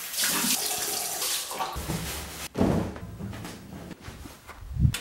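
Water running from a bathroom tap into a sink for nearly two seconds, then a series of irregular knocks and thuds, the loudest near the end.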